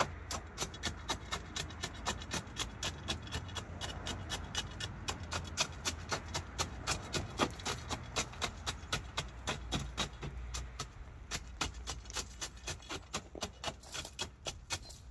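Tamping rod driven again and again into gravel ballast, packing it under the ties of a jacked-up miniature railway track: sharp strikes about three times a second.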